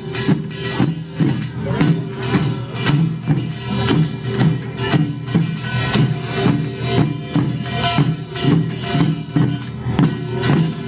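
Korean pungmul folk band playing a steady rhythm on drums and percussion, with sustained pitched tones over the beat.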